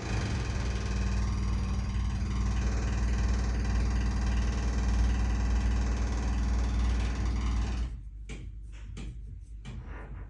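Construction machinery engine running steadily with a heavy low rumble, cutting off abruptly about eight seconds in, followed by a few short knocks.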